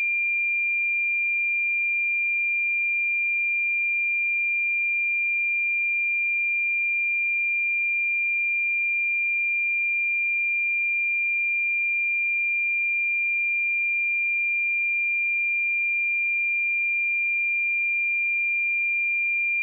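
A pure 2391 Hz sine-wave test tone, held steady at one pitch and level.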